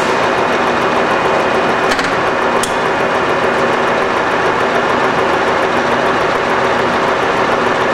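Warner & Swasey 1A saddle-type turret lathe running under power, a steady mechanical hum and whine from its motor and gearing. Two brief clicks come about two seconds in.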